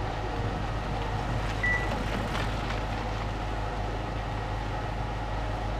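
Steady outdoor background noise with a low, even hum, and one short high beep about a second and a half in.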